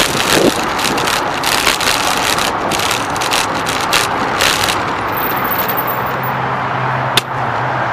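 Traffic and road noise heard from a moving bicycle: a loud rushing that flutters for the first few seconds, then settles. A low steady engine hum comes in about six seconds in, and there is a single sharp click near the end.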